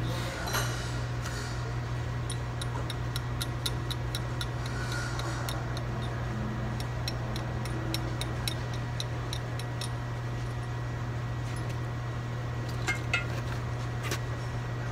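Hand tool working on a Ford Expedition's steel CV axle shaft: a run of light, evenly spaced metallic clicks, about three a second, then a few single clicks near the end, over a steady low hum.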